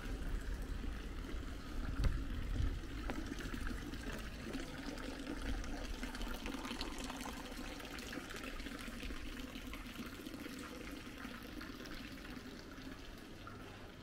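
Water running and trickling steadily, slowly fading away.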